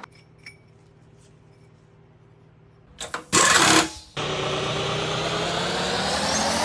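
A faint low machine hum, then a click and a short, loud blast of noise about three seconds in. From about four seconds a machine tool runs with a whine of many tones that climbs steadily in pitch as it cuts.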